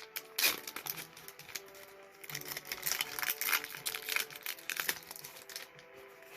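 Trading-card booster pack wrapper crinkling and rustling as it is handled and torn open, stopping about five seconds in, over quiet background music.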